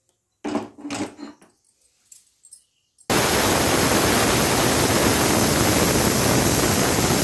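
Pressure cooker releasing steam through its weight valve: a loud, steady hiss that starts suddenly about three seconds in. This is one of the 'whistles' counted to time the chickpeas cooking under full pressure.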